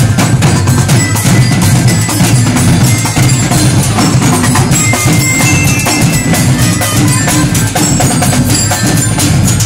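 Parade percussion band playing: large bass drums, hanging gongs and wooden percussion struck together in a steady, repeating rhythm, with the gongs ringing over the drum beat.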